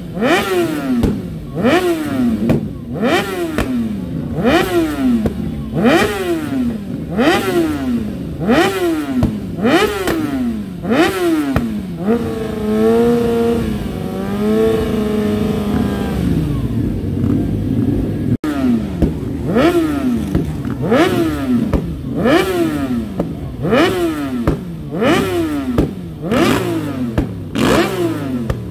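Motorcycle engine revved over and over, its pitch rising and falling at an even pace of about once a second. For a few seconds midway it is held at a steadier, wavering note before the revving resumes.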